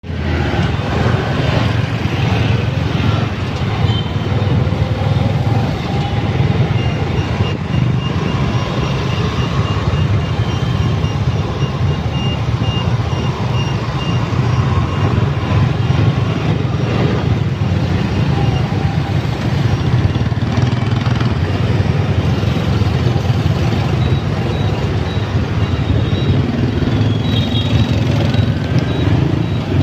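City street traffic of motorbikes and buses, a steady low rumble of engines and road noise. A faint series of short high beeps runs for several seconds about a third of the way in.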